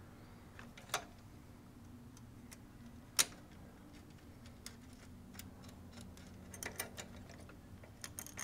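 Light metallic clicks and taps of a metal mounting plate being fitted against the scooter trunk base's frame and bolt studs: two sharper clicks in the first few seconds, then a quick cluster of clicks near the end, over a low steady hum.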